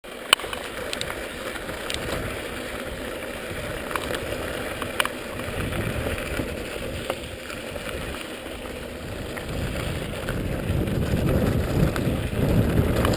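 Mountain bike rolling over a dirt trail: tyre and trail noise with frame and chain rattle and wind on the microphone. There are a few sharp clicks or knocks, and it gets louder in the last few seconds.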